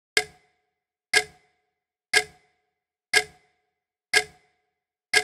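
Clock ticking: six sharp ticks, one a second, each dying away quickly, with silence between them.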